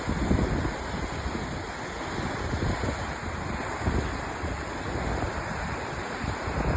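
Sea waves breaking and washing in a steady rush of water, with irregular low rumbling gusts of wind on the microphone.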